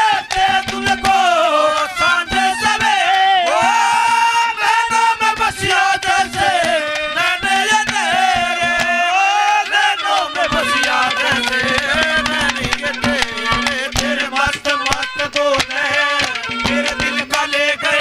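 Haryanvi folk ragni accompaniment played without singing: a wavering, gliding lead melody over a repeated steady low note, driven by fast, dense drumming on dholak-style hand drums.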